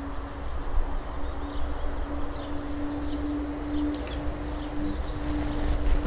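A steady low hum over a low rumble, with a few faint, short high chirps from small birds.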